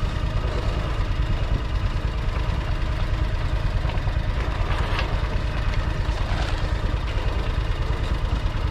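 Engine of a John Deere Gator utility vehicle idling steadily, a low rumble with a fast, even pulse.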